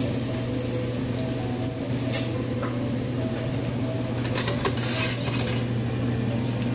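Minced garlic sizzling faintly in oil in a stainless steel pot, with a wooden spatula scraping and tapping against the pot a few times. A steady low hum runs underneath.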